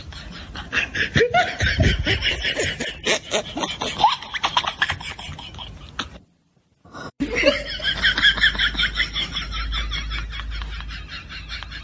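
A woman laughing hard in quick repeated bursts, then a second of complete silence at a cut, then another stretch of laughter that fades toward the end.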